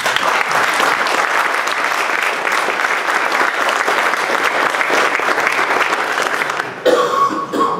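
Audience applauding: dense, steady clapping for about seven seconds. Near the end the clapping gives way to a brief louder sound with a held tone.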